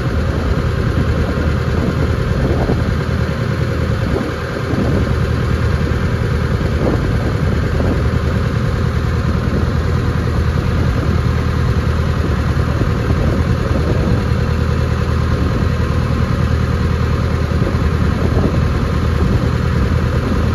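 A motorboat's engine running steadily under way, with water rushing and splashing past the hull.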